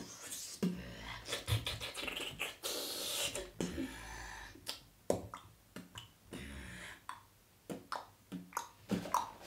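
A boy beatboxing: quick mouth clicks and pops mixed with hissing, cymbal-like sounds, with a short pause about two-thirds of the way through.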